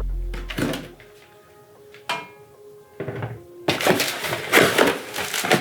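Background music fades out in the first second. A couple of knocks follow, then a stretch of rustling and clattering as the bagged mounting hardware and packaging are handled.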